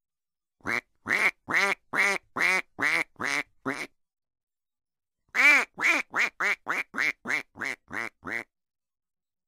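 Duck quacking in two runs: about eight quacks at a steady pace, a pause of about a second and a half, then about ten quicker quacks. The quacks fall into dead silence between them, as a clean recorded sound effect does.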